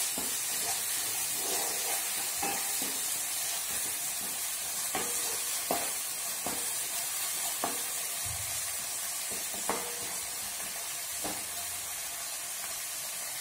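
Chopped onions with green chillies and curry leaves sizzling in hot oil in a black nonstick kadai while they fry. A wooden spatula stirring them scrapes and taps the pan now and then, about once a second.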